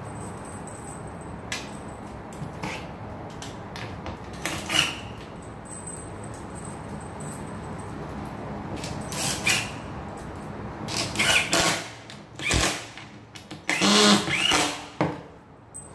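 Cordless drill driving screws into an office chair's seat base, running in several short bursts, the longest and loudest near the end.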